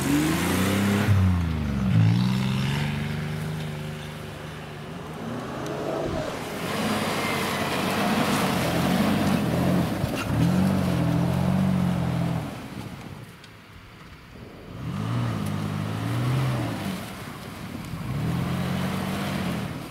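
Off-road SUV engine, mostly a lifted Mitsubishi Pajero Sport's, revving up and falling back again and again as it pushes through deep snow. A rushing hiss of wheels churning snow runs underneath, dropping away briefly about 13 seconds in.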